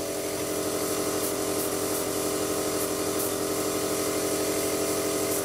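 Small airbrush compressor running steadily with a hum, under an even hiss of air.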